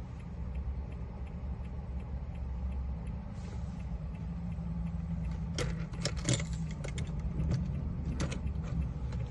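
Keys being handled, with a cluster of light jangles and clicks from about five and a half to eight and a half seconds in. A steady low rumble runs underneath.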